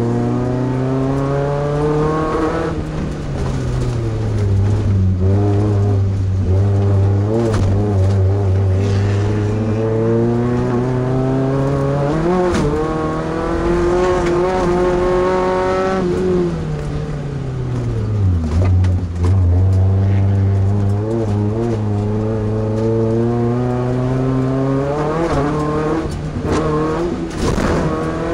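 Class 2 off-road race truck engine at racing speed, pitch falling and climbing again and again as the driver lifts off and accelerates, with a deep dip about 18 seconds in. Several sharp thumps from the truck crashing over rough ground cut through the engine sound.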